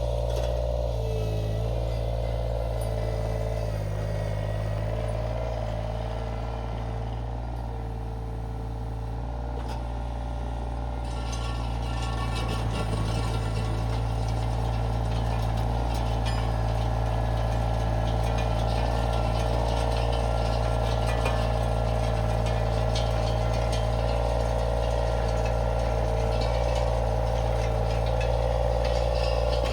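Iron Rhino IR1200 mini skid steer's engine running steadily. From about 11 seconds in, a gritty clatter joins it as the power rake attachment churns through compacted dirt and gravel.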